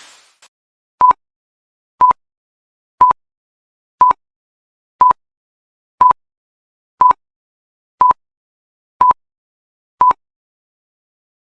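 Interval timer beeping ten times, one short high beep per second, counting down a rest break between exercises.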